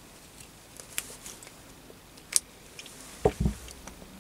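Small pliers clicking on a potentiometer's copper rivet stubs as they are bent back and forth and snapped off: two sharp clicks about a second and a half apart, then a dull knock and thud near the end.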